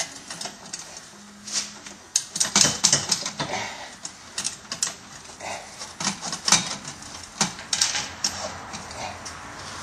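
Irregular metal clicks, clinks and knocks as stainless exhaust parts are handled and test-fitted: a muffler being offered up to the pipes and hangers.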